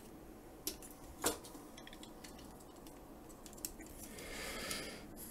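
Faint clicks and taps of hard plastic toy parts being handled, the loudest about a second in, with a soft rubbing rustle near the end.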